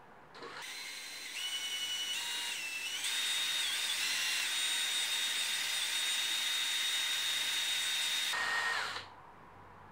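Cordless drill running a small cobalt HSS bit into a broken M6 bolt in a motorcycle engine casing, drilling a pilot hole. The motor's whine rises in speed in steps over the first few seconds, runs steady, then slows and stops near the end.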